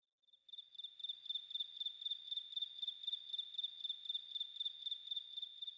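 Cricket chirping: one steady high trill pulsing about four times a second, starting about half a second in.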